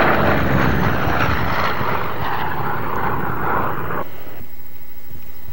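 Piston engine and propeller of a gull-winged warbird making a low fly-by, loudest at the start and falling in pitch as it moves away. The sound cuts off suddenly about four seconds in.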